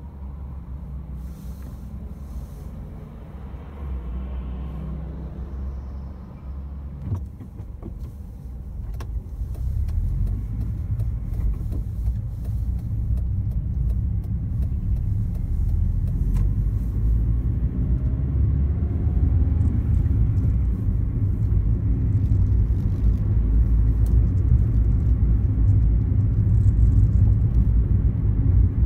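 Car cabin noise: low engine and road rumble, quieter at first, then louder from about ten seconds in as the car gets under way, and steady after that.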